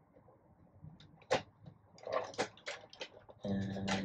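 A toy figure being worked out of its plastic packaging tray: scattered sharp plastic clicks and rustling, one louder click about a second in and a cluster of them a second later, then a short steady buzzing tone near the end.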